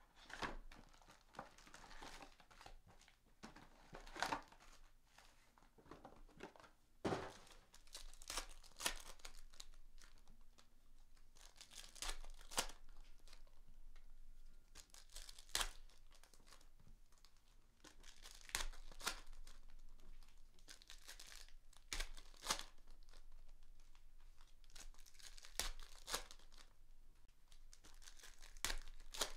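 Trading-card pack wrappers being torn open and crinkled by hand, in a string of sharp crackling rips with rustling between them.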